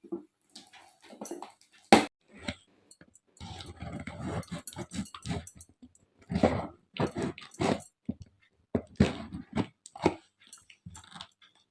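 A taped cardboard gift box being pulled and torn at by hand: rustling, scraping and ripping of packing tape, with a sharp knock about two seconds in. The cellotape is holding and the box will not open.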